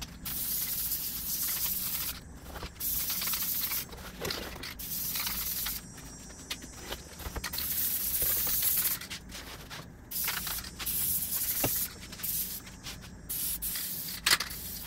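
Aerosol can of spray adhesive hissing in repeated bursts of about one to two seconds each, with short breaks between them, as contact glue is sprayed onto fabric. A sharp click near the end.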